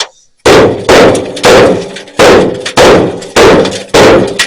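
Seven hard hammer blows on the steel hood of a 1980 GMC Sierra, about two a second, each a loud metallic bang with a short ringing decay. The badly bent hood is being forced into line by hammering.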